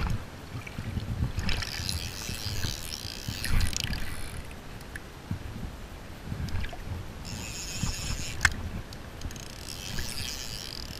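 River water lapping and sloshing close by, with uneven low rushes and spells of higher hiss. One sharp click about three quarters of the way through.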